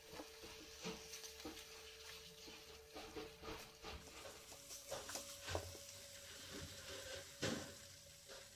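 Spatula stirring and scraping a thick spice paste around a non-stick wok: a scatter of soft scrapes and taps, over a faint steady hum.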